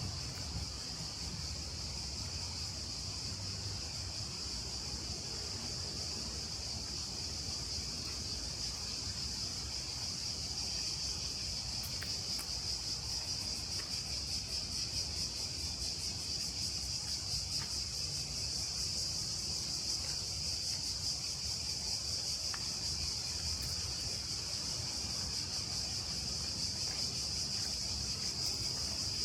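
Cicadas in chorus: a continuous, high, steady buzz. A low steady rumble runs underneath.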